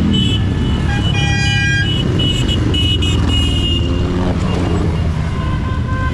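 Motorcycles passing one after another, their engines running with a steady low drone. A horn toots briefly about a second in.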